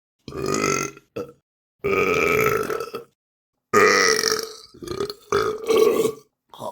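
A series of human burps, about half a dozen one after another with brief silences between them; two in the middle are long and drawn out, the rest shorter.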